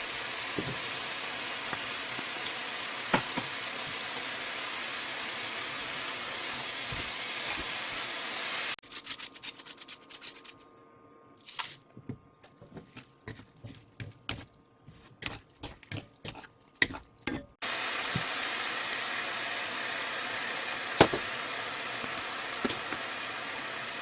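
Food sizzling steadily in an oiled frying pan, with a few sharp taps of a utensil against the pan. In the middle stretch the sizzle drops away and a run of irregular clicks and knocks takes its place, then the sizzling comes back.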